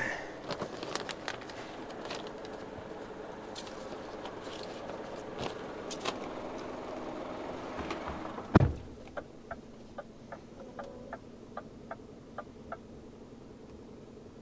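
Several seconds of steady outdoor noise with scattered clicks and knocks, then a truck cab door shuts with one loud thud a little past halfway. After the thud the sound is quieter and duller, with a short run of even ticks, about three a second.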